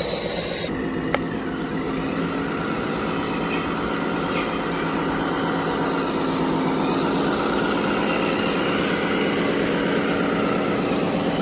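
Radio-controlled model trucks and excavator running with a steady engine-like hum, and a single sharp click about a second in.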